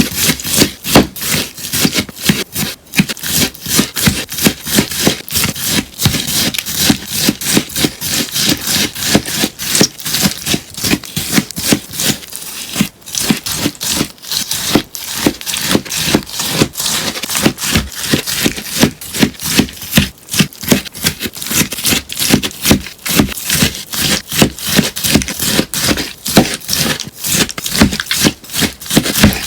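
A sponge being cut over and over, giving crisp snips at about three to four a second without a break.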